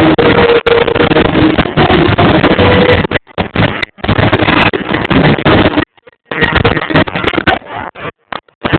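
Fireworks going off in a continuous barrage, loud enough to overload the recording into a dense rumble. The sound cuts out abruptly a few times: about three seconds in, around six seconds, and briefly near the end.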